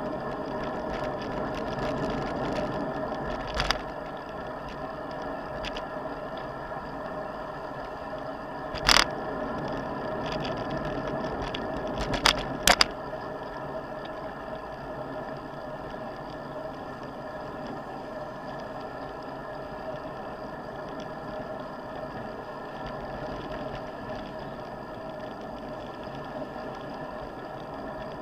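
Steady rolling and wind noise of a bicycle ridden along a paved bike path, picked up by a handlebar-mounted camera. Sharp knocks cut in about 4 seconds in, about 9 seconds in, and twice in quick succession about 12 to 13 seconds in.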